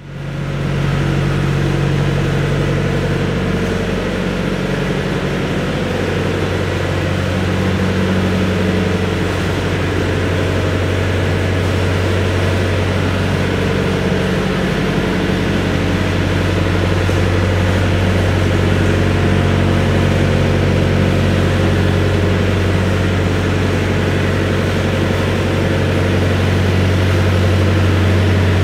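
Compact excavator's diesel engine idling steadily, its low note shifting slightly now and then.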